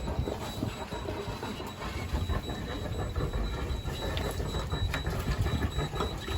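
A sailing yacht's inboard diesel engine running steadily at low speed, under a rapid string of short, high, even electronic beeps: the depth sounder's alarm warning of shallow water.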